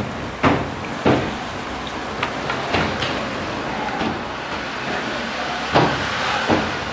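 Steady sizzling of chebakia pastries in hot frying oil, with about four sharp knocks of a wire mesh basket being worked in the pot of honey: two near the start and two near the end.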